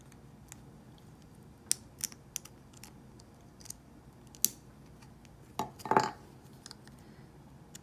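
Small plastic and metal parts of a T-blade hair trimmer head clicking sharply several times as they are handled and pressed together under spring tension, then a short scraping rattle a little after the middle.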